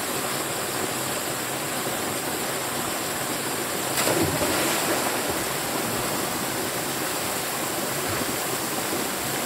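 Small waterfall pouring steadily into a pool. About four seconds in, a splash as a swimmer dives into the water, then the rush of falling water goes on.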